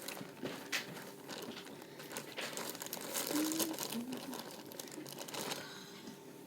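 Irregular crinkling and rustling of materials being handled and moved about.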